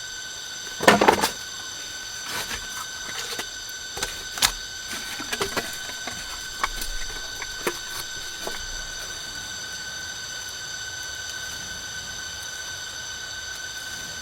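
Steady high insect drone of several held pitches, with scattered sharp knocks and clicks over it; the loudest cluster of knocks comes about a second in, and fewer follow after about 9 seconds.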